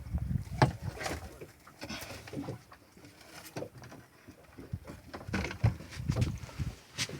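Irregular knocks and sharp clicks with low thumps: gear and bodies moving about a small fishing boat.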